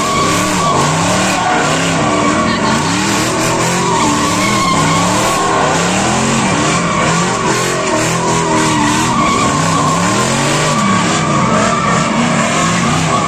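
Drift cars sliding sideways: the engines rev up and down over and over as the drivers work the throttle, over the continuous squeal and scrub of spinning rear tyres.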